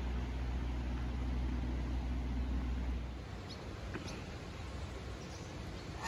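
Outdoor riverside ambience: a steady low rumble that stops about three seconds in, with faint hiss, then a few faint short bird chirps.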